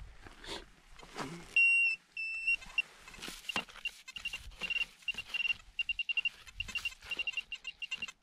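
Handheld metal-detector pinpointer probe beeping in a single high tone as it is worked through dry grass and soil. After two longer tones, short beeps come faster and faster until they nearly run together near the end, as the tip closes in on the buried metal target. Scratchy rustling and clicks of the probe and glove in the grass come between the beeps.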